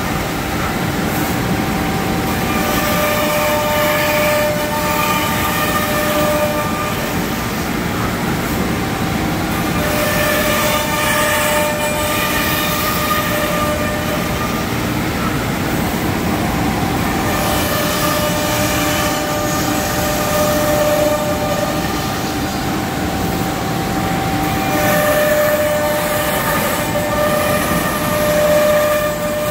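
Thermwood CNC router's spindle running steadily while the machine cuts a 3/4-inch melamine sheet. A whining tone comes in for a few seconds at a time, about every seven seconds, over steady machine noise.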